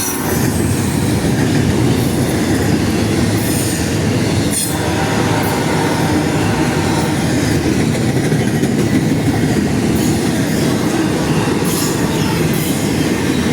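Norfolk Southern intermodal freight train cars passing close at speed: a loud, steady rumble of steel wheels on rail with occasional sharp clacks.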